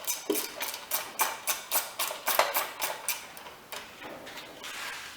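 Ratchet wrench clicking rapidly as a socket is turned to undo a fastener on a lawnmower engine, about four clicks a second, thinning out and fading about three seconds in.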